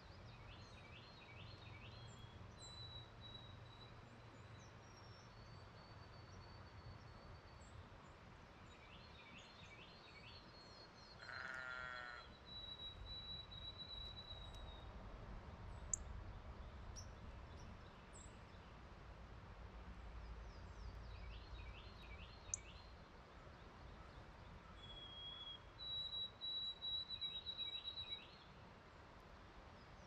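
Faint songbirds singing: several bouts of quick, repeated down-slurred whistles and long, high, held whistles, the loudest near the end. A brief, lower, pulsing call sounds about eleven seconds in, and two sharp ticks come later.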